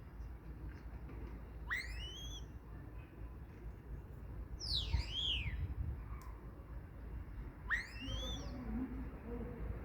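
Common starling giving three slurred whistles, about three seconds apart: the first and last sweep upward and curve over, the middle one drops.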